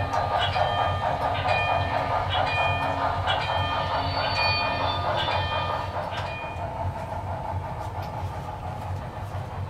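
Sound-equipped HO-scale Broadway Limited Texas & Pacific 2-10-4 steam locomotive running on a model railroad: a steady hiss with a short ringing note about once a second, growing fainter after about six seconds.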